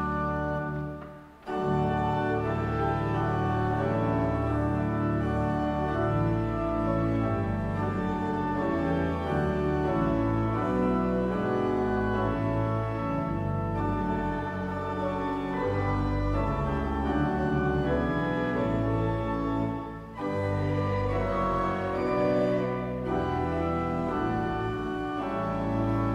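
Church organ playing slow, sustained chords, with brief breaks between phrases about a second in and again near the twenty-second mark.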